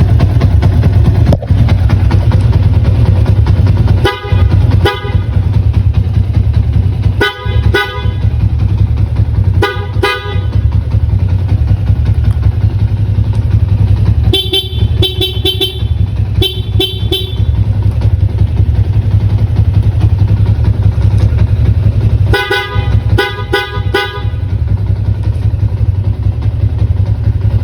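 Dual motorcycle horn set, the stock horn wired together with a Bosch Evolution horn, sounded over a steady engine idle: two short beeps, then two single blasts, then two runs of quick toots.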